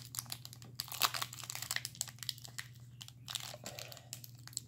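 Foil wrapper of a trading-card pack crinkling and crackling in the hands as it is pulled and torn open, in quick irregular crackles.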